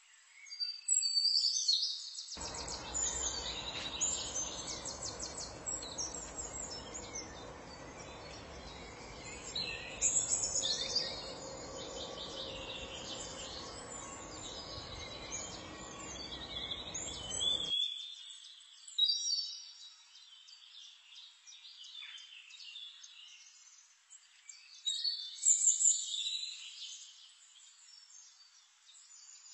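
Small birds chirping and calling over and over in quick, high notes. Under them runs a steady low rushing noise that starts a couple of seconds in and cuts off suddenly a little past halfway.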